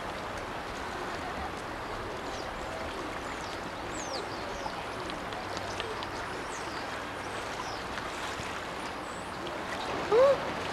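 Steady rushing of creek water. Faint high chirps come and go in the middle, and a short voice call is heard near the end.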